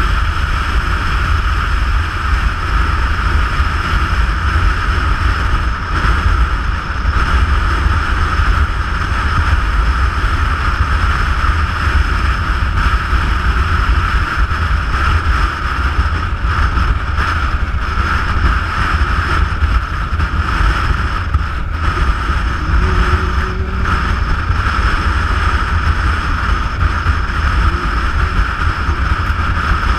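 Steady wind buffeting and road rumble from a vehicle travelling at speed along the road, heavy in the low end, with engine and tyre noise under the wind rush.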